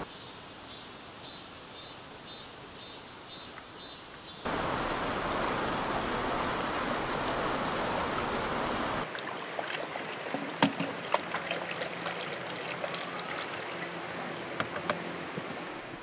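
Rocky mountain stream rushing, the loudest sound, heard about four seconds in. Before it, a quieter outdoor hush with a faint high chirp repeating about twice a second; after it, a quieter stretch with scattered sharp clicks.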